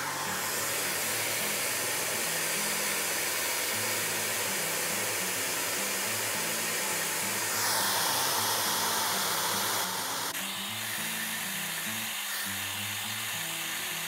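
Create Ion YURE DORA-FV hair dryer blowing steadily on the hair roots, its swinging nozzle set to vertical swing. The rush of air gets louder and brighter about halfway through, then eases back a couple of seconds later.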